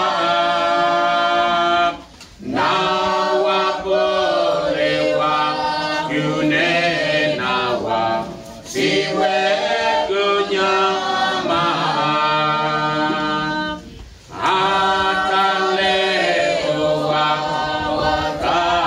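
Congregation singing a Swahili hymn unaccompanied, in long held phrases with short pauses for breath about 2, 8 and 14 seconds in.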